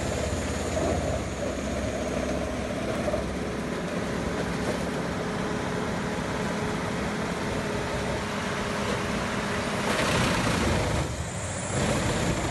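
Heavy wood-shredding machine running steadily under load: a deep, continuous mechanical rumble with a steady engine tone and the noise of wood being ground up, briefly louder about ten seconds in.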